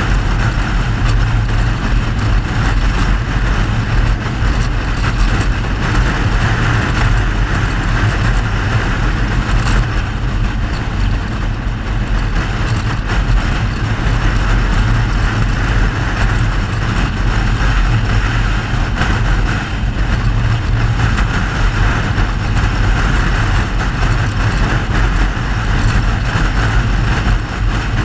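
Mercedes-Benz W126 on the move at a steady pace: an even engine drone with road and wind noise over it, no revving or gear changes.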